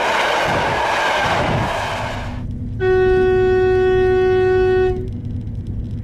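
Rushing noise of a train running past, which cuts off suddenly about two seconds in. Then a Swedish train's horn sounds one steady tone for about two seconds over a low hum.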